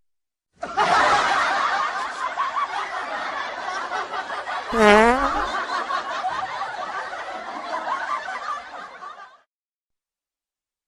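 Laughter from several people snickering and chuckling at once. It starts abruptly and cuts off abruptly, like an edited-in laugh clip. A brief pitched squeal that dips and rises sounds about five seconds in.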